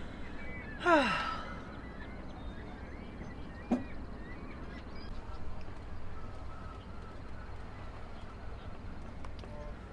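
A woman's long, contented sigh that falls in pitch, about a second in. A brief click follows near four seconds, over a low, steady background rumble.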